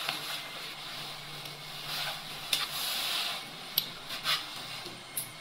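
Handling noise of a phone being moved and set down against bedding: rubbing and rustling with a few light knocks, and a stretch of hiss from about two seconds in.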